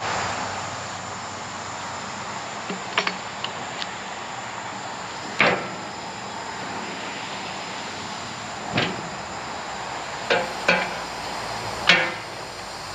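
About six scattered knocks and clunks over a steady background hiss, the loudest about five and a half seconds in and near the end.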